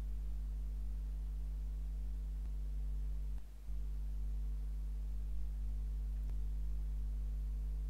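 Steady low electrical mains hum with a few higher overtones, briefly dropping away about three and a half seconds in; two faint ticks sound in the background.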